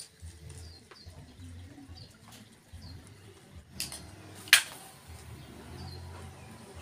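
A dove cooing over and over, with small birds chirping. Two sharp clacks of hand tools being set down on a tile floor, the second and louder one about four and a half seconds in.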